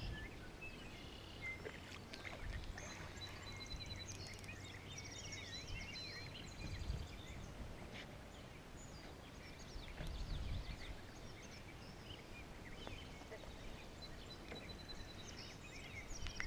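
Faint outdoor pond ambience: birds chirping and calling in short rising and falling notes over a low rumble, with a couple of soft low thumps about seven and ten seconds in.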